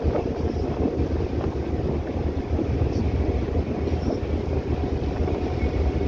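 Passenger ferry under way, heard from on board: a steady low rumble mixed with wind buffeting the microphone.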